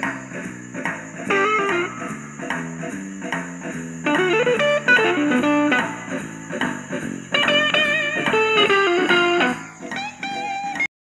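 Background music: plucked guitar notes over a bass line, cutting off suddenly near the end.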